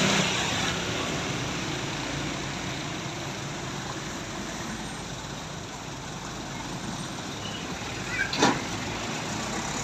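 Steady roadside traffic noise from passing vehicles, with a brief sharp knock or clatter about eight and a half seconds in.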